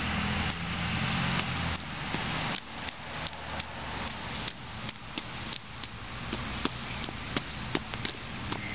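Rain falling on wet pavement, a constant hiss, with a low hum in the first two seconds or so. From about two and a half seconds in come sharp, irregular ticks, several a second.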